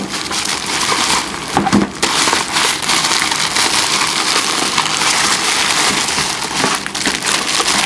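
Plastic bubble wrap crinkling and rustling as hands grip it and pull it around a boxed unit, a dense run of small crackles.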